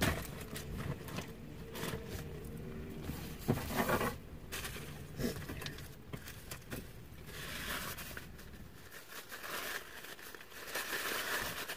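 Crinkling and rustling of takeout food packaging and a reusable fabric shopping bag being handled as leftovers are packed away, with a few light knocks.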